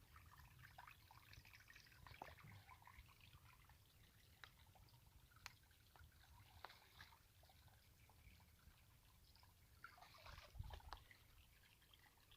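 Faint clicks and scrapes of hand digging in wet gravel in a small runoff creek, with faint trickling water. Slightly louder scraping comes about ten seconds in.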